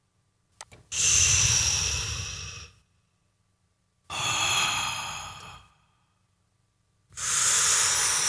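Three breathy whooshes blown with the mouth, each lasting a second or two, processed into a sound effect with equalization, compression and reverb. Two short clicks come just before the first.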